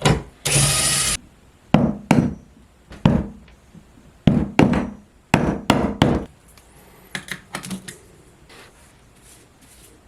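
Workshop handling sounds on wood: a brief burst of noise from a tool, then a run of separate knocks and thunks over a few seconds, tapering to a few light clicks.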